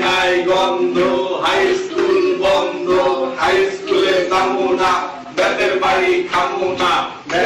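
Male voice chanting in a sing-song, evenly paced rhythm, each short phrase held on steady notes.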